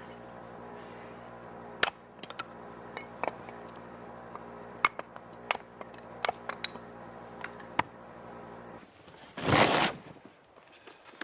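A steady mechanical hum made of many even tones, with scattered clicks and knocks of gear being handled. The hum cuts off about nine seconds in, and a loud rush of noise under a second long follows.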